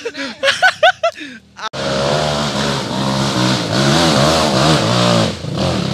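Dirt bike engine revving hard under load, its pitch rising and falling again and again. It starts abruptly about two seconds in and eases to a lower, steadier note near the end.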